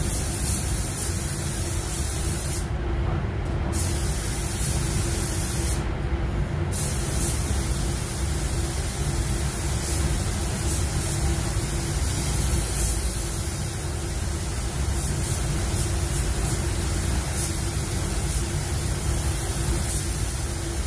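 Gravity-feed air spray gun hissing steadily as it sprays pearl white basecoat onto a car bumper, the hiss cutting out briefly twice about three and six seconds in as the trigger is released. Under it runs a steady low rumble, typical of a paint booth's ventilation.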